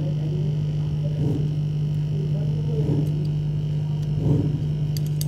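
Hot-air rework station blower running with a steady hum and a higher whine: a bit noisy.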